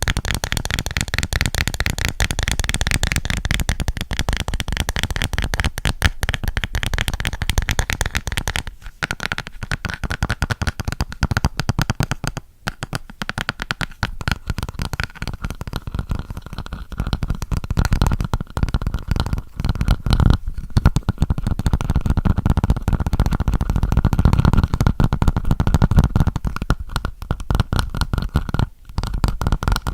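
Fast, dense tapping close to the microphone, many taps a second, broken by brief pauses about nine, twelve, twenty and twenty-nine seconds in. A faint steady ringing tone runs under the taps, stronger in the second half.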